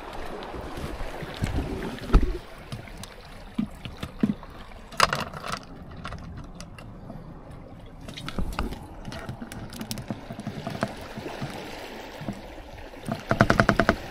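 Wind on the microphone with scattered knocks as a caught fish is handled and put through the lid hatch of a plastic cooler on rocks. Shortly before the end comes a quick run of rapid clicks, the loudest sound here.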